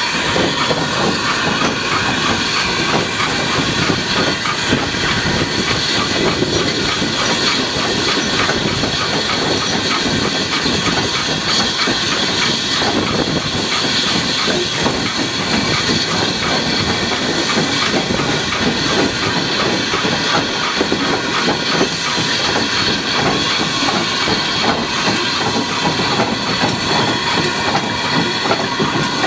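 Industrial saddle tank steam locomotive on the move: steady hissing steam and exhaust beats mixed with the clatter of the train's wheels on the rails.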